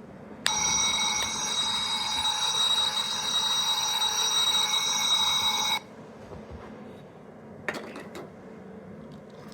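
Electronic sound effect from a small gashapon capsule toy: a steady, high ringing sound over a hiss for about five seconds, starting and cutting off abruptly. A few sharp clicks follow near the end.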